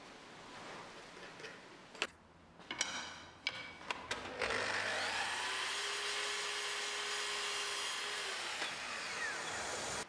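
A few clicks and knocks of handling, then about four seconds in a Festool sliding mitre saw's motor starts and runs steadily for about six seconds while it cuts a thin wooden strip, stopping abruptly near the end.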